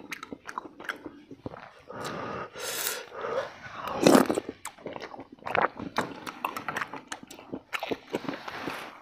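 Close-up eating sounds: soup slurped from a spoon, with chewing, lip smacking and many small wet clicks.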